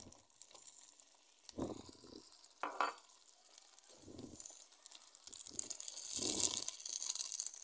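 Tomatoes and onions frying in a metal karahi, stirred with a metal ladle: sizzling that grows louder near the end, with a sharp clink of the ladle about three seconds in and several dull thumps.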